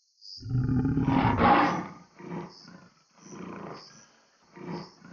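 Lioness snarling and growling as she guards her food, a warning sound: one long, loud snarl, then a run of shorter growls about once a second.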